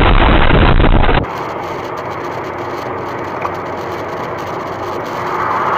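A loud rushing noise cuts off suddenly about a second in. After it, steady road and engine noise of a car driving at speed on a highway, heard from inside the car.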